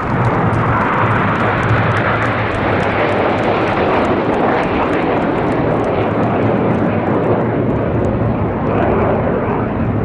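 BAE Hawk T1 jets of the Red Arrows flying over, a loud, steady jet roar that holds through the whole stretch.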